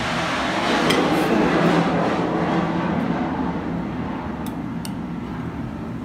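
A broad rushing noise swells and slowly fades, with a few light clinks of a metal knife against a china plate as a soft caramel pudding is cut.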